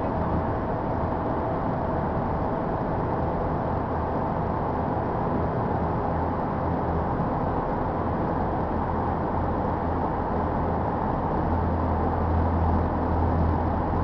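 Steady road and engine noise of a car driving, heard from inside the cabin, with a low drone that grows a little louder near the end.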